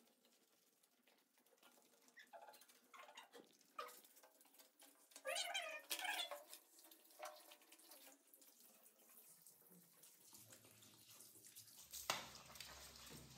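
Beagle puppy whimpering in short, high whines during its bath, the loudest pair about five and six seconds in; the puppy is scared of being bathed. Near the end a handheld shower starts spraying water.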